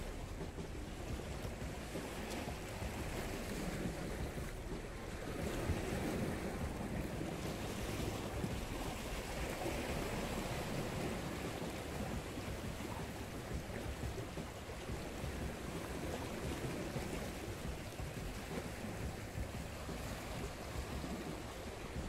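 Sea water washing against a rocky shore, a steady rushing that swells and eases, with wind on the microphone.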